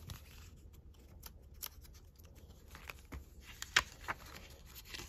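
Quiet desk handling of planner pages and sticky tabs: scattered light rustles and ticks, with one sharp click a little under four seconds in.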